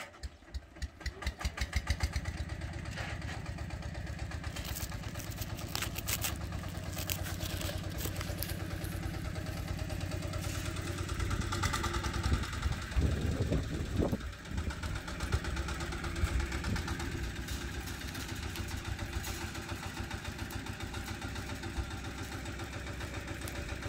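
An engine that has just started, its firing beats quickening over the first two seconds and then settling into a steady idle, with a louder stretch about halfway through.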